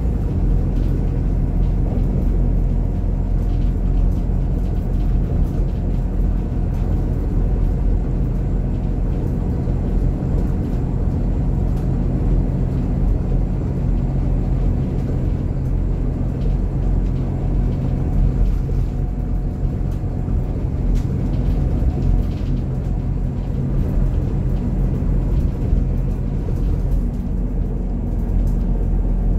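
Scania DC9 inline five-cylinder diesel engine of a Scania K280IB coach running at a steady pace, heard from inside the passenger cabin as an even low rumble.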